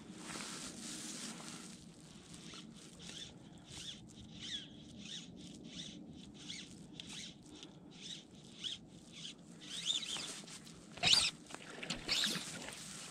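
Fly line being stripped in by hand through the rod guides: a string of short, irregular rasping pulls, then two louder sharp sounds near the end.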